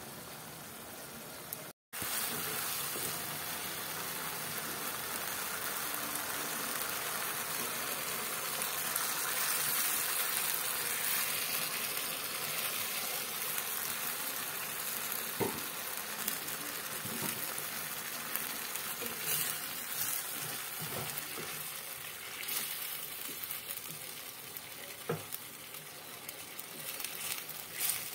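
Pork and instant noodles sizzling steadily in a pot on the stove while a wooden spatula stirs them, with a few scrapes and knocks of the spatula against the pot in the second half. The sound cuts out for a moment about two seconds in.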